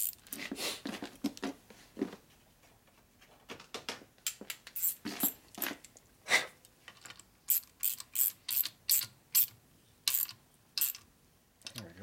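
Small metallic clicks and taps of a hand wrench and fitting as an oil-line fitting nut is tightened on an engine case, with a run of evenly spaced clicks, about three a second, in the second half.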